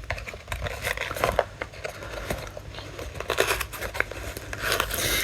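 Packaging of a boxed MP3 player being handled and opened, with scattered small clicks, crinkles and scratches.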